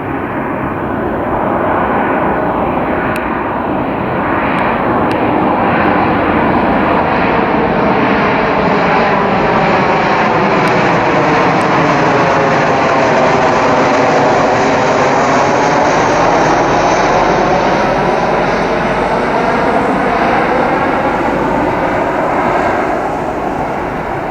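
Airliner passing close by, its engines loud and steady, with a sweeping, phasing sound that is strongest about halfway through as it passes nearest.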